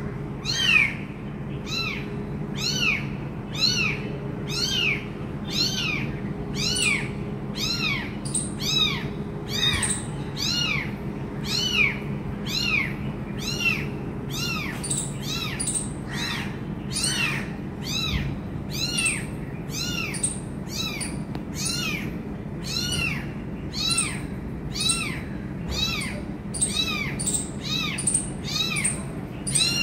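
Young kitten mewing over and over, about one and a half times a second, each call high-pitched and rising then falling in pitch: a kitten separated from its mother crying for her.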